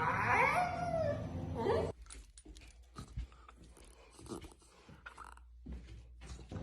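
A dog whining in a few wavering, rising and falling cries for about two seconds, then quieter scattered taps and rustles.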